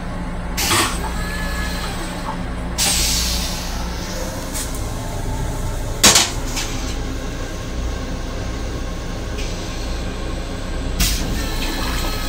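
Steady running rumble of a commuter railcar heard inside its restroom, with a short hiss and a few clunks. The loudest is a sharp knock about six seconds in, as the toilet seat is lowered onto the bowl.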